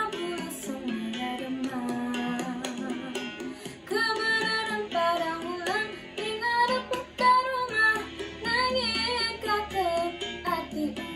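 A girl singing solo over a plucked guitar accompaniment, her voice gliding between held notes with vibrato.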